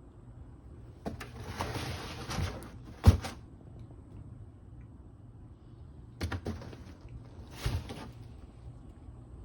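Scraping and rustling handling noises in three spells, with a sharp knock about three seconds in, over a low steady hum.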